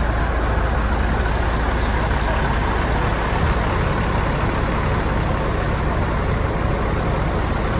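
Diesel coach engines idling with a steady low rumble.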